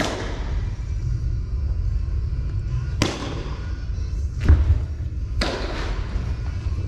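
Four sharp ball impacts from pitching and batting practice, each trailing off with an echo, over a steady low hum. The heaviest thud comes about four and a half seconds in.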